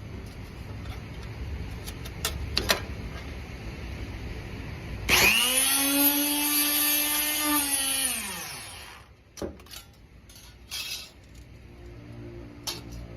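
Electric motor of a Kamekura RF-A2 port puncher switched on about five seconds in. It runs up quickly to a steady whine with no load for about three seconds, then is switched off and winds down with falling pitch. A few handling clicks come before and after.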